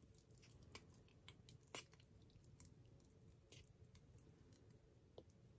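Faint scraping and soft clicks of a wooden stir stick working in an opened can of thick, strong-smelling finish, almost at the edge of silence, with one slightly louder click near the middle.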